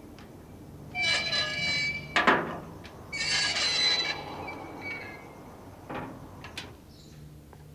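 A door creaking open with two squealing creaks, each about a second long, and a sharp latch knock between them. Lighter clicks follow near the end.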